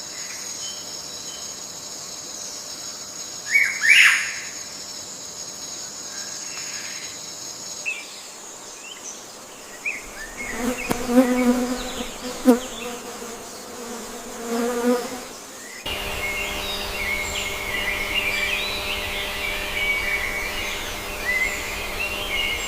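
Wild-animal ambience in several cuts. A steady high insect buzz runs with one loud sweeping bird call about four seconds in. Next come a few seconds of repeated low, pitched animal calls, and then a cut to continuous bird chirping over a low hum.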